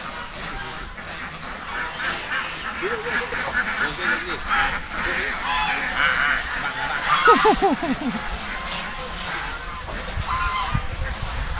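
A large flock of domestic ducks quacking continuously, many calls overlapping, with one louder, drawn-out call about seven seconds in.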